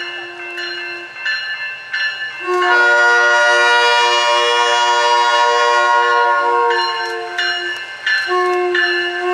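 SMART Nippon Sharyo diesel multiple unit's horn sounding a steady chord in long blasts: one fading about a second in, a long one of about five seconds starting around two and a half seconds in, and another starting near the end. A bell rings with evenly spaced strikes in the gaps.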